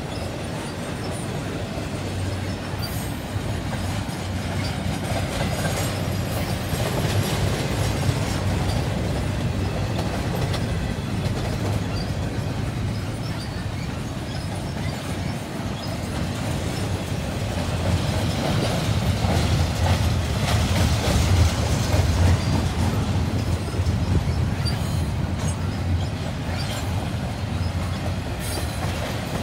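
Steel wheels of a double-stack container freight train's well cars rolling past on the rails: a steady heavy rumble with occasional clicks. It swells a little about two-thirds of the way through.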